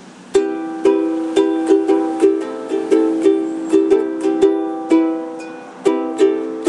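Acoustic string instrument strumming chords in a steady rhythm, the instrumental intro of a song; it starts about a third of a second in and pauses briefly near the end before resuming.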